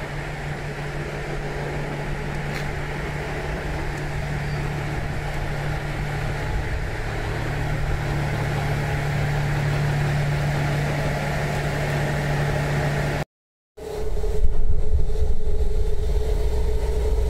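Diesel railcar engine idling with a steady, even hum. After a break about 13 s in, a louder, deeper rumble follows, like the railcar pulling away.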